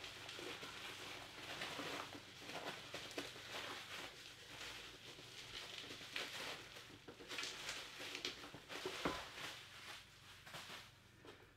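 Hands rummaging through packing material in a box: faint, irregular rustling and crinkling, with a sharper knock about nine seconds in.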